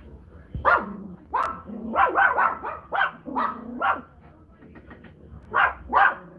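Pomeranian puppies yapping: a quick run of short, high-pitched barks through the first four seconds, then two more near the end.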